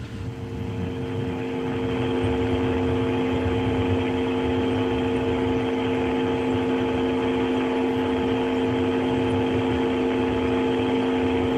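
Steady machinery hum from the launch pad's ground equipment, several held tones over a low rumble and hiss. It fades up over the first two seconds, then holds level.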